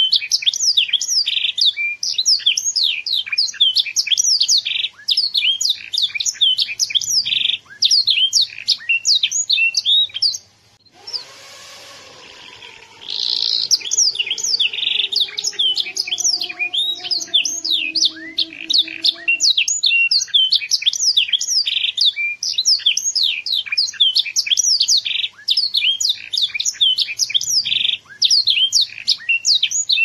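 Young domestic canary singing a fast, continuous song of rapid high chirps and trills, pausing for about two seconds roughly ten seconds in before starting again.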